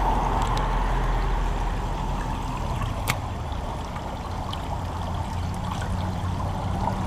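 Shallow river current running steadily, with a low steady rumble of traffic on the highway bridge overhead. A single sharp click sounds about three seconds in.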